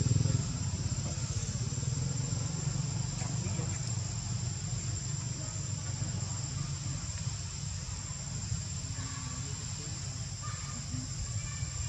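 Outdoor ambience: a steady low rumble with a constant thin high-pitched hum over it, and no clear event standing out.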